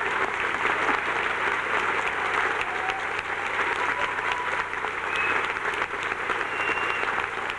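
Theatre audience applauding steadily, with a few scattered cheers.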